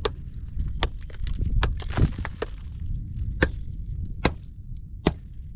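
A hand axe striking wood in repeated chopping blows, about seven sharp knocks roughly a second apart, over a steady low rumble.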